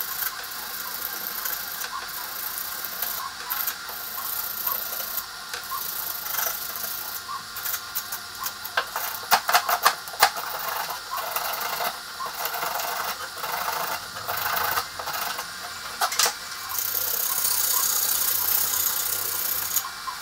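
An 80-grit abrasive flap disc, held in the hand, scraping back and forth over a glossy 3D-printed PLA hub, a rough rasping with many small clicks, scuffing the plastic so that cast polyurethane will bond to it. A 3D printer's motors whir steadily underneath.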